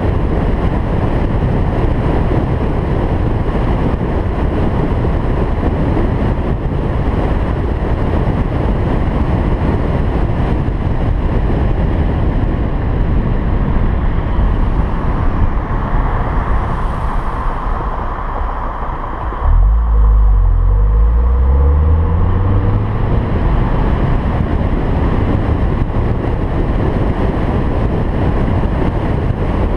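Steady wind and road rush from a car driving at speed, easing as the car slows, then about two-thirds of the way through a sudden louder low engine rumble rising in pitch as the car accelerates again.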